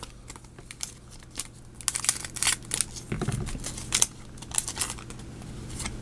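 Foil wrapper of a Japanese Pokémon booster pack being torn open by hand, crinkling and crackling in quick bursts through the middle few seconds.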